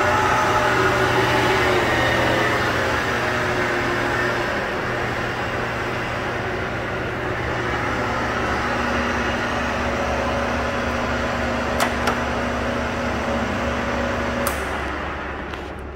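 1940 Monarch 10EE precision lathe running on its variable speed drive: a steady motor and gear whine over a low hum, its pitch shifting in the first few seconds as the speed control is turned. Two sharp clicks come near the end, then the whine stops and the machine winds down.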